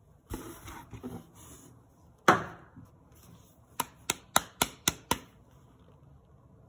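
Products being handled over an open cardboard box: rustling, then one loud knock about two seconds in as an item meets the box. Then six sharp taps in a row, about four a second, on the plastic jar of powder.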